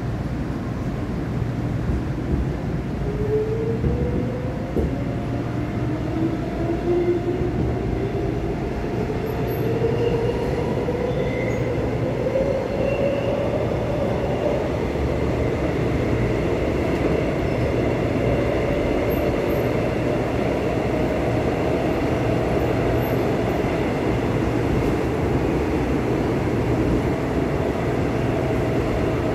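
Busan Metro Line 1 thyristor-chopper electric train, heard from inside the car. For the first fifteen seconds or so a motor whine rises steadily in pitch as the train gathers speed, then levels off under a continuous running noise of wheels on rail.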